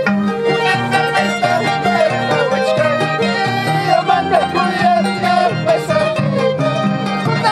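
Music: a violin carries a wavering melody over plucked-string accompaniment with a repeating bass line.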